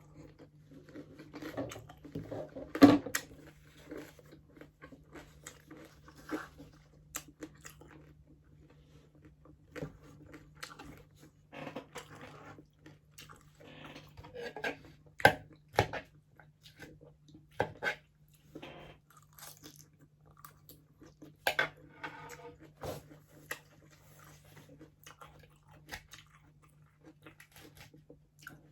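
Close-up chewing and crunching of crispy pata, deep-fried pork knuckle with crackling skin: irregular sharp crunches between stretches of chewing, the loudest bite about three seconds in. A steady low hum runs underneath.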